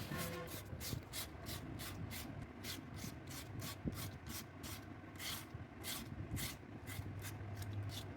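Sandpaper rubbed back and forth over a fridge door panel, smoothing it before painting: an even run of quick scratchy strokes, about five a second.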